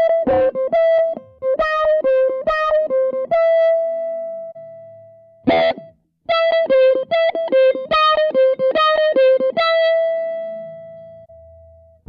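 Electric guitar played through a Zoom G1Four multi-effects pedal on its "A Wah" patch: a short phrase of quickly picked notes rocking between two pitches, ending on a held note that rings out and fades. After a brief strum the same phrase is played again, this time with the pedal's amp and cabinet simulator switched on.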